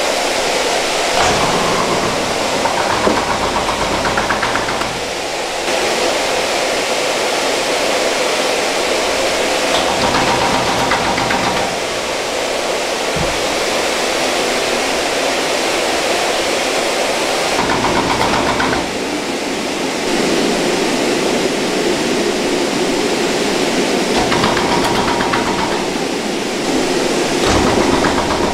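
Sundae stuffing machine running with a steady mechanical rushing noise while casings are filled with glass-noodle and rice filling.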